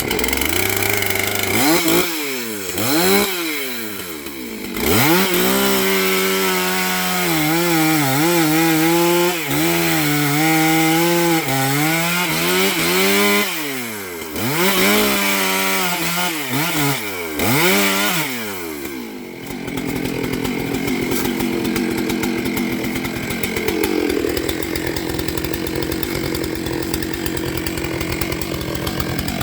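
Gasoline chainsaw engine revved up and down over and over, its pitch rising and falling, with a longer stretch held at high revs. About two-thirds of the way in it turns to a steadier, rougher buzz.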